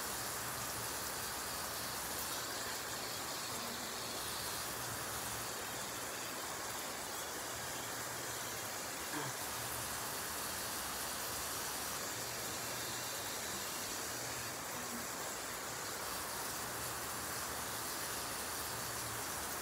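Water running steadily, a continuous even hiss, with one small click about nine seconds in.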